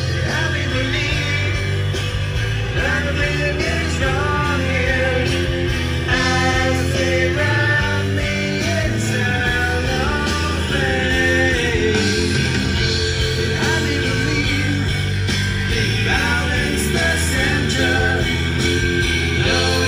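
Background music: a rock-style song with a singing voice, steady and continuous.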